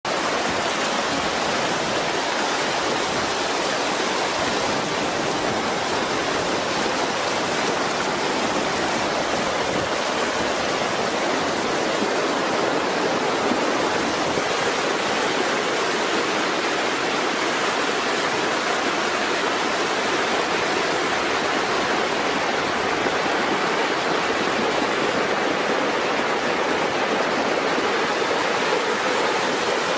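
Fast-moving floodwater rushing steadily.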